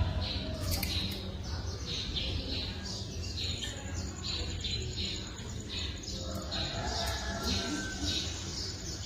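Small bird chirping over and over, short high chirps about two a second, over a steady low hum.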